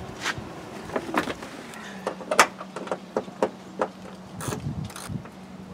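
Irregular sharp metallic clicks and knocks from hand tools working inside a pickup's door shell as the power window regulator's mounting bolts are tightened.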